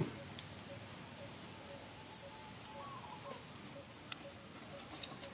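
Short, very high-pitched squeaks from a baby long-tailed macaque: a cluster about two seconds in and another near the end. Under them, a faint call repeats about twice a second.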